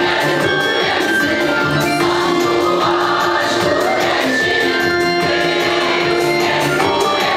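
Large mixed choir of men's and women's voices singing in parts, holding long sustained notes, with accordion accompaniment.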